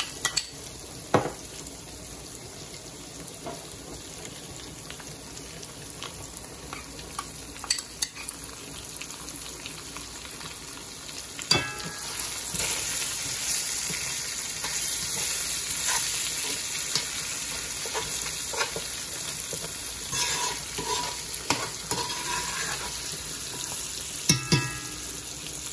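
Sliced sausage and chopped bell peppers sizzling in oil in a pan, the sizzle growing louder about halfway through as more peppers go in. A few sharp knocks of a spoon against the pan come as the food is stirred, the loudest near the end.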